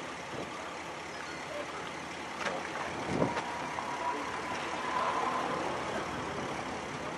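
Steady outdoor rush of wind and road traffic noise, with a couple of light knocks about three seconds in. A faint steady tone sounds for about two seconds just past the middle.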